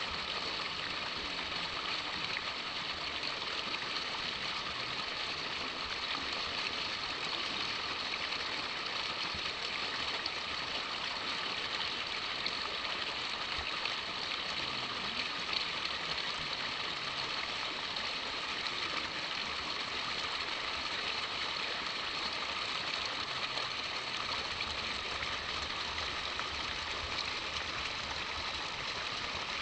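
Steady rushing background noise, even throughout, with no distinct events.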